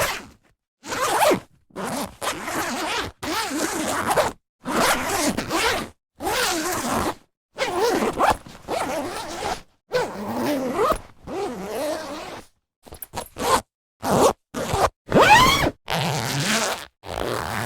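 Zippers being drawn open and shut, one pull after another, each a rasping stroke from a fraction of a second to about a second and a half long, with short silences between.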